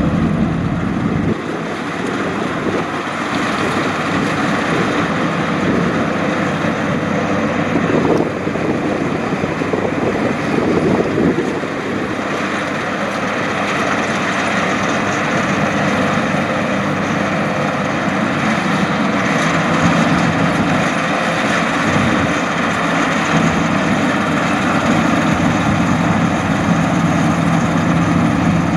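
Rice combine harvester running steadily in the field, its engine and machinery a continuous drone with a few small swells in level.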